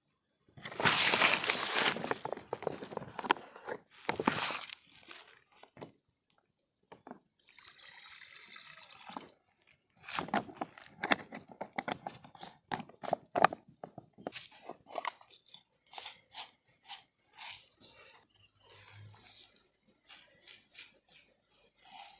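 Water poured into a pot for tea over about four seconds, then scattered clicks, knocks and crunches of handling.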